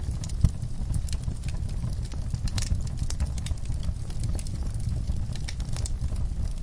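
Fire in a fireplace crackling: irregular sharp pops and snaps over a steady low rumble of the flames, with one louder pop about half a second in.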